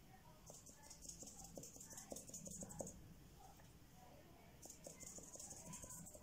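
Faint scratchy brushing of a paintbrush on paper, in two spells of strokes.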